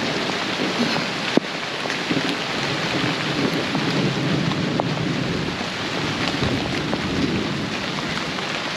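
Heavy thunderstorm downpour: dense, steady rain hissing, with thunder rumbling underneath. A single sharp tap comes a little over a second in.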